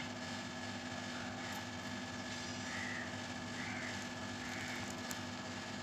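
A steady background hum with two constant tones. Over it come three faint, short, high calls, each rising then falling, about a second apart near the middle.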